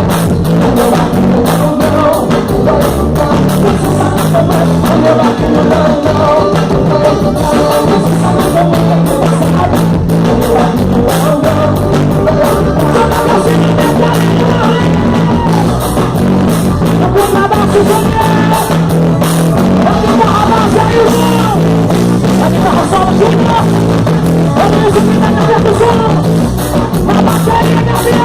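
Gospel forró song played by a band, with a steady drum beat, a bass line and a singing voice carrying the melody.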